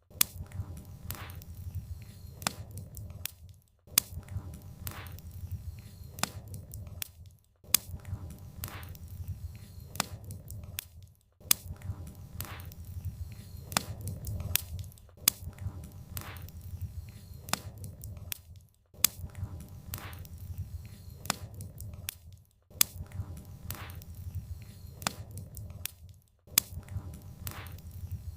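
Campfire of burning firewood crackling, with sharp pops over a low rumble. The crackling drops out briefly about every four seconds.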